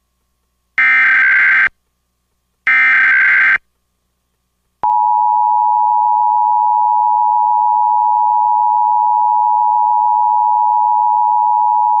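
Emergency Alert System SAME header: two bursts of high-pitched digital data screech, each just under a second, with short gaps between them. About five seconds in, the EAS attention signal starts, a steady two-tone pitch (853 and 960 Hz together), announcing a law enforcement warning.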